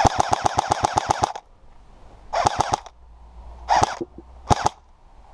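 Airsoft gun firing in full-auto bursts: one burst of about ten shots at roughly eight a second, lasting just over a second, then three short bursts.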